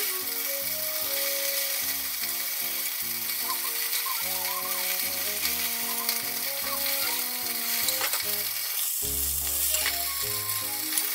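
Background music with a slow melody of single notes, over a steady sizzle of food frying in a covered frying pan.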